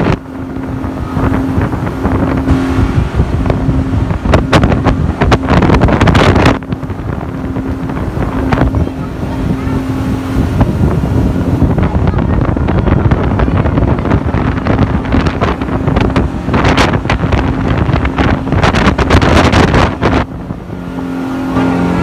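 Passenger boat's engine running steadily under a continuous rush of wind and water, with a low hum. Wind buffets the microphone and the phone scrapes against clothing in repeated crackling bursts.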